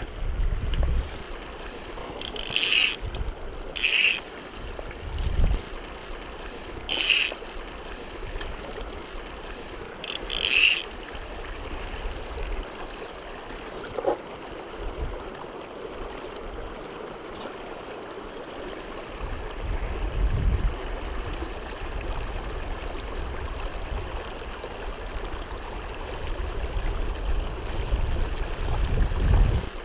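The Madison River rushing steadily over a shallow gravel riffle. Four short hissing sounds stand out in the first eleven seconds.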